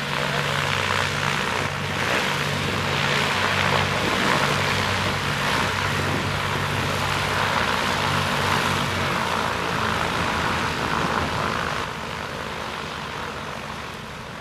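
Several Piaggio P.149D trainers taxiing, their piston engines and propellers running at low power with a slow, regular throb. The sound drops off somewhat about twelve seconds in.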